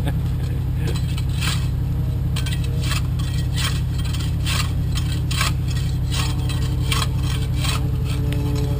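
Shovel scraping and digging into dirt and gravel in repeated strokes, about two a second, over a vehicle engine idling steadily.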